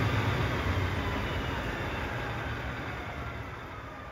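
Diesel engine of a 1600 kW Kohler standby generator running with a deep rumble and a faint whine. The sound grows steadily fainter, and the whine sags slightly in pitch.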